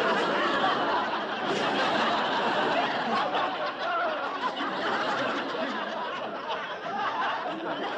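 Laugh track: many people laughing and chuckling at once, an unbroken crowd of overlapping laughs that eases slightly toward the end.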